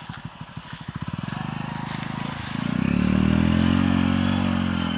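Small motorcycle engine idling with an even putter, then revving up about halfway through as the bike pulls off into shallow water, its pitch rising and then easing back.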